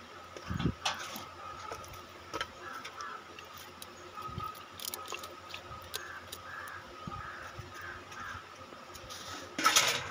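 Hands pressing and packing cut palmyra palm fruit pieces into water in a large aluminium pot: soft wet squelches and light knocks against the pot, with a brief louder rustling burst near the end. Crows caw in the background.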